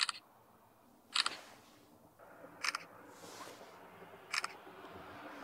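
A camera shutter firing four times, about one and a half seconds apart, each a quick double click.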